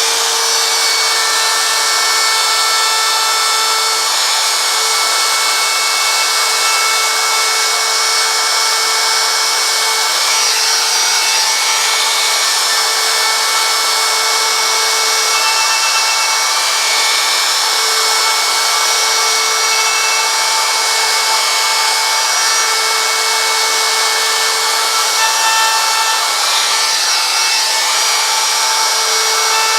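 Handheld router running steadily with a high whine as its bit cuts into wood, straightening the edges of carved lines in a wooden sign. The pitch wavers briefly a couple of times as the cut changes.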